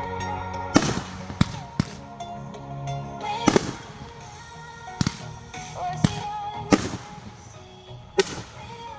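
Hand-lit consumer fireworks going off: about eight sharp bangs at uneven intervals, each with a short crackling tail, over background music.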